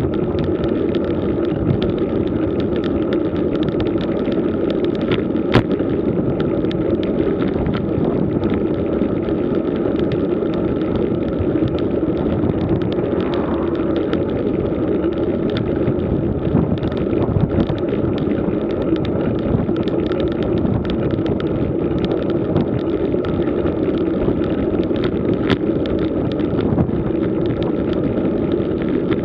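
Road bike rolling over worn tarmac: a steady rumble of tyre and road vibration with many small rattling clicks.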